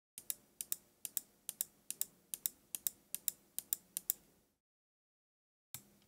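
Gaming mouse buttons clicking: about a dozen sharp clicks in quick pairs over four seconds, then one more pair near the end.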